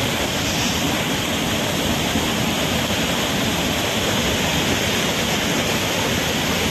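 Floodwater from a reservoir filled almost to capacity pouring over the crest of the dam's spillway gates: a loud, steady rush of falling water.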